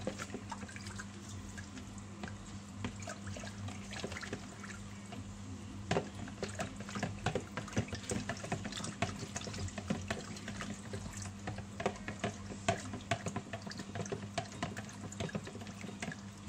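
A metal spoon stirring a thin sauce in a plastic measuring jug: liquid swishing with many small irregular clinks and scrapes against the jug, over a steady low hum.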